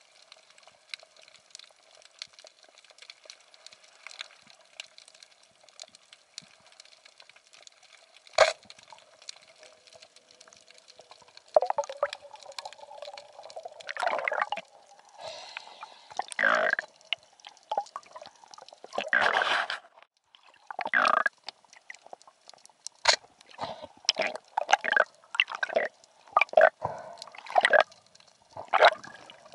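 Water noise picked up by a camera during a spearfishing dive: a faint steady crackle, one sharp click about eight seconds in, then from about halfway on, repeated loud bursts of sloshing and bubbling water.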